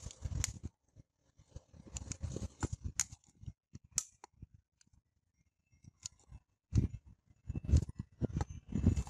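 Cut halves of a thin plastic bottle handled and pressed together: scattered clicks, crackles and short scrapes of plastic, with a quiet spell around the middle.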